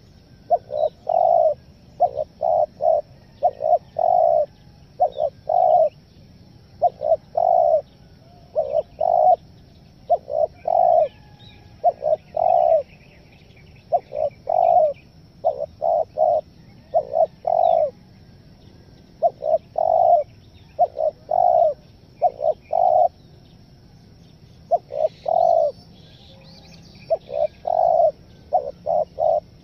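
Spotted dove (tekukur) cooing over and over in short phrases of two to four low notes, a phrase every couple of seconds. The full coos alternate with broken, stuttering ones.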